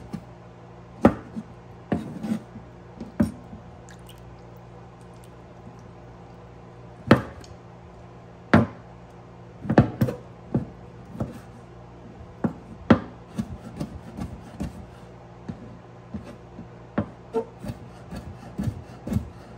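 Chef's knife chopping horse conch meat on a wooden cutting board: irregular sharp knocks of the blade on the wood, some single and some in quick runs, over a steady low hum.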